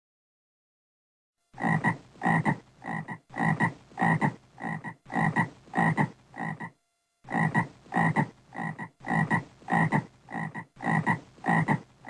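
A frog croaking in a rhythmic series of short calls, about two to three a second, starting about a second and a half in, with a brief pause near the middle.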